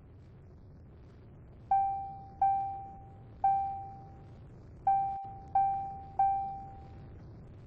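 A bell-like ding at one pitch, struck six times in an uneven rhythm, each note dying away within about a second.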